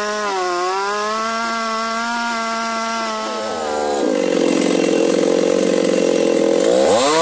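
Large two-stroke chainsaw running at high speed. About four seconds in its pitch drops and turns rougher as it works under load in the wood, then it rises and falls quickly near the end.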